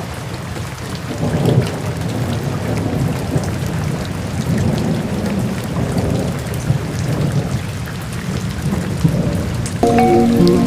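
Waterfall: water rushing and splashing with a deep, steady rumble and a fine crackle of drops. Soft music with held tones comes in near the end.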